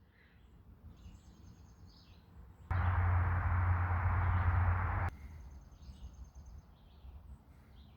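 Faint bird chirps. About three seconds in, a steady low hum with hiss starts abruptly, lasts about two and a half seconds, and cuts off just as suddenly.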